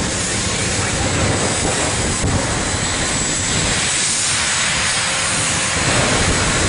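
Jet dragster's jet engine running loud and steady at high power with the afterburner lit.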